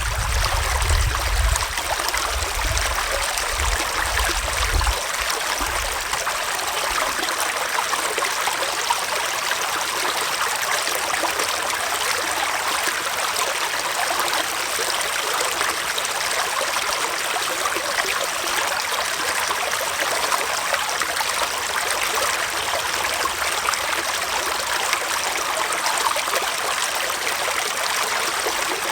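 Small forest stream flowing over rocks: a steady rush of water with trickling. Some low rumbling sits under it during the first five seconds or so.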